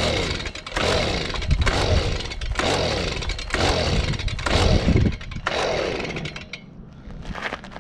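Stihl BG55 two-stroke handheld leaf blower being pull-started: about six quick recoil-starter pulls, roughly one a second, each cranking the engine over with a falling whir without it starting.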